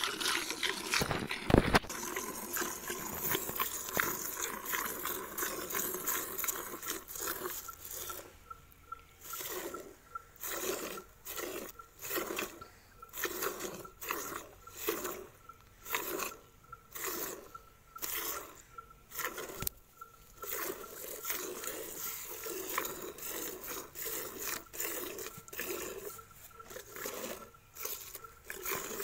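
Cow being milked by hand: milk squirting from the teats into a steel pail that already holds milk, in regular squirts of about two a second. There is a loud knock about a second and a half in.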